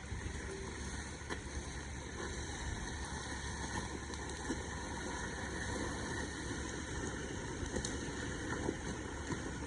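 Car engine running steadily at low revs, with a few faint clicks.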